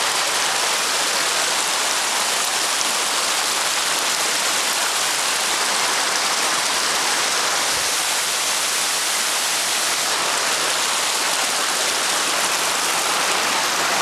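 Steady, hissing rush of a small waterfall: creek water pouring over flat rock ledges.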